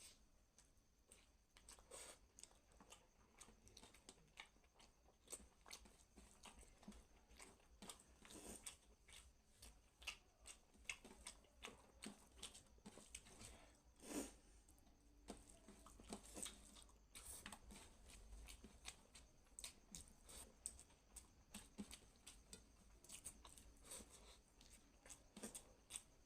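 Faint, close-miked eating sounds: chewing with irregular wet mouth clicks and smacks.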